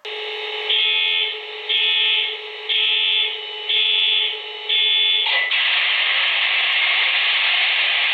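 Sound system of an MTH model EMD SD70ACe diesel locomotive powering up. It plays five alarm-like beeps about one a second, then, after a click a little past five seconds in, a steady diesel engine running sound from the model's small speaker.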